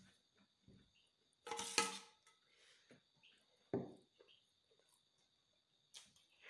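A steel spoon clattering and scraping against a stainless-steel bowl, with a ringing clink about one and a half seconds in and a sharper knock near four seconds. Faint wet chewing and mouth clicks in between, over a faint steady high whine.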